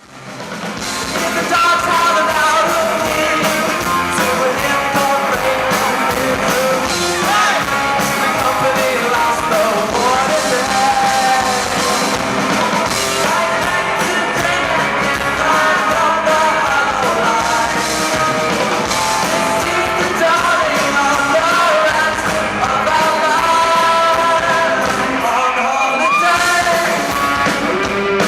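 Rock song with a sung lead vocal over a full band; it fades in at the start and fades out at the very end.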